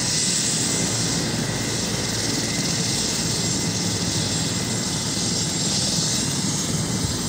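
Air ambulance helicopter running on the ground with its rotors at speed, ready to lift off: a steady, even sound with a low rumble and a high turbine hiss over it.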